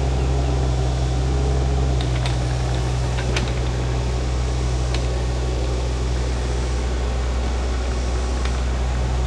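Shantui mini excavator's engine running steadily, with a handful of brief light clicks over the top.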